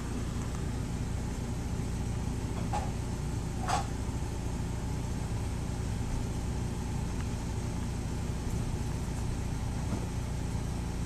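Steady low background hum, with two brief clicks about a second apart near the 3-second mark.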